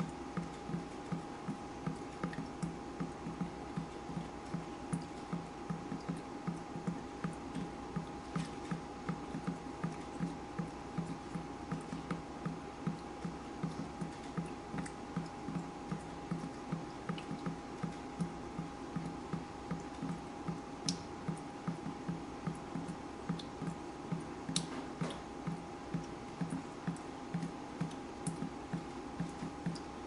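Water dripping steadily in a fast, even rhythm, about two to three low drips a second, with a few sharper ticks scattered among them. A faint steady tone sounds underneath.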